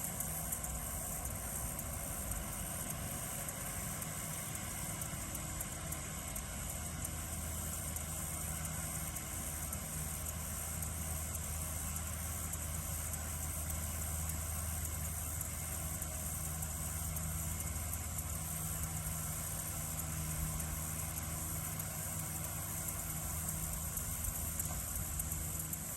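Tractor engine running steadily at a low, even hum while mowing hay. Crickets chirp in a constant high-pitched band over it.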